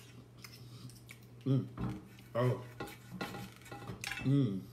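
Metal cutlery clicking and scraping on a plate while eating, with a few short hummed vocal sounds in between and a steady low hum underneath.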